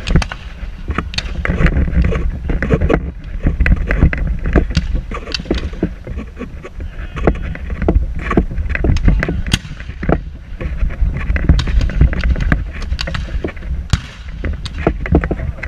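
Wind buffeting the microphone in a steady low rumble, with many sharp cracks and knocks scattered irregularly through it.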